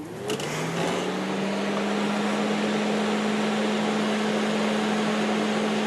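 Fan-Tastic Vent RV roof vent fan starting up: the motor hum rises in pitch for about a second and a half as the blade spins up, then settles into a steady hum over a constant rush of moving air.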